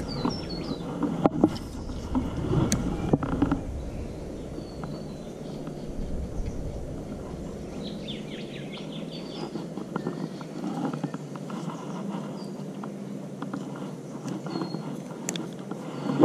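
Clicks and handling noise from a fishing rod and spinning reel as the lure is cast and cranked back, with small birds giving short high chirps now and then.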